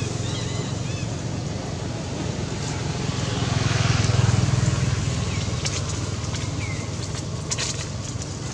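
Outdoor background sound: a steady low rumble that swells and fades about halfway through, with short bird chirps now and then and a few sharp clicks in the second half.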